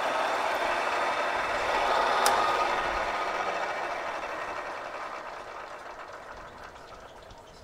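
Vertical milling machine's spindle motor running with a drill chuck fitted; a click about two seconds in, after which the machine winds down steadily, fading as the spindle coasts toward a stop.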